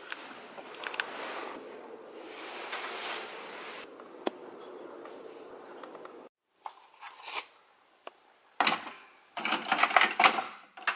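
Rustling and handling noise with scattered sharp clicks. After a sudden break, a few short bursts of clicking and clatter follow, the last of them from the plastic lid of a single-serve coffee maker being worked.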